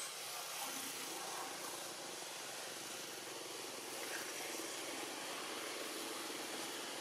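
A steady hum with hiss, holding level throughout with no distinct events, like a distant engine.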